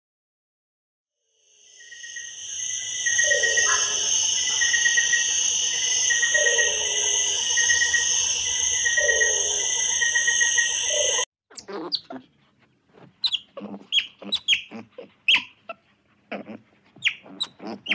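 A dense chorus of birds and insects: a high steady drone, a short trilled call repeating about every second and a half, and a lower falling call every few seconds. It cuts off abruptly about two thirds of the way through, followed by a run of short, sharp animal calls.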